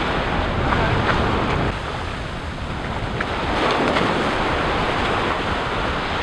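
Ocean surf washing in over the shallows of a beach, a steady wash that eases briefly and surges again about four seconds in.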